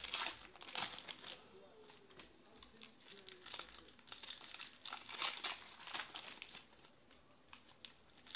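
Trading-card pack wrappers being torn open and crinkled by hand, in quick irregular crackles that come in clusters.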